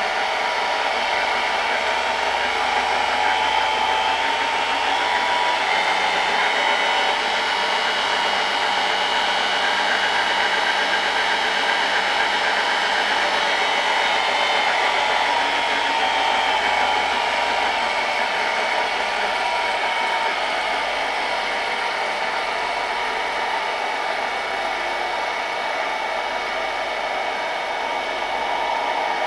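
Electric motor driving a gearbox on a home-built rotating head, running with a steady whine. Its pitch rises slightly a few seconds in and drops back after about a quarter of a minute.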